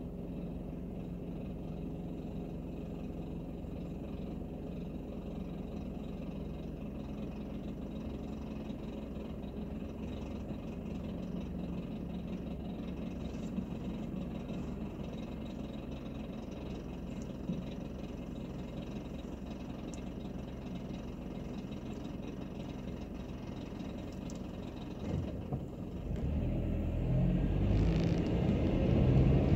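Car engine idling steadily with a low hum, heard from inside the cabin. Near the end the car pulls away, and engine and road noise rise as it accelerates.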